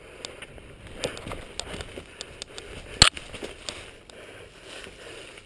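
Mountain bike rolling fast down a dirt trail: tyres crunching over dirt and gravel, and the bike rattling with scattered clicks. One sharp clack about three seconds in.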